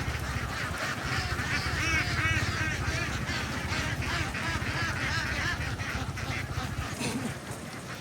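A large flock of domestic ducks quacking and calling all at once, a dense, overlapping chatter over a steady low rumble.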